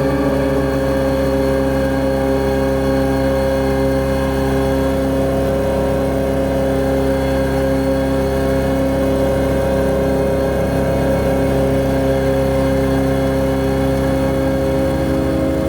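Harsh noise drone made by mangling a refrigerator's hum through effects: a loud, steady mass of held tones over a throbbing low rumble.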